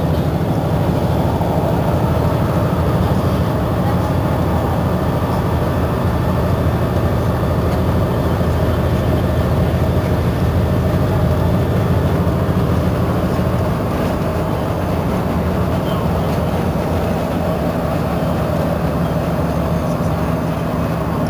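Iveco Crossway bus's diesel engine running with a steady low rumble, a little quieter from about two-thirds of the way through.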